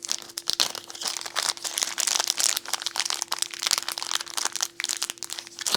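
Crinkling and rustling handling noise with many small irregular clicks, from hands working with small parts while a fuse is fitted into a fuse holder. A faint steady hum runs underneath.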